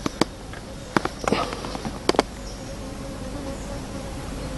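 Steady buzzing of an insect, with a few short sharp clicks near the start, about a second in and about two seconds in.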